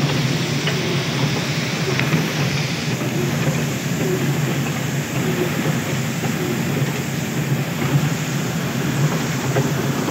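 Palm oil mill conveyor running: a steady low machine hum under a constant noisy rush, with a dense scatter of small clicks from palm nuts and fruitlets tumbling off the rotating shaft.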